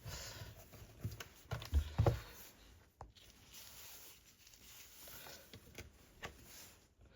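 Workbench handling noise: a few light knocks and taps, the loudest about two seconds in, with faint rustling between.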